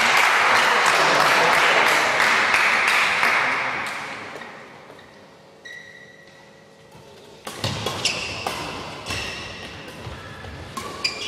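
Hall applause that dies away over the first few seconds. Then a badminton rally starts: sharp smacks of rackets hitting the shuttlecock, and shoes squeaking on the court floor.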